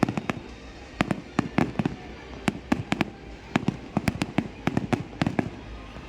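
Fireworks going off in a rapid, irregular string of sharp bangs, often several in quick succession.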